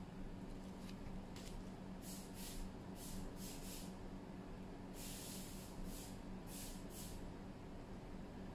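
Short, soft scratchy rubs, with one longer stroke about five seconds in, as fingertips press and smooth a tempered-glass protector onto a GoPro Hero 8 Black's rear screen, over a steady low hum.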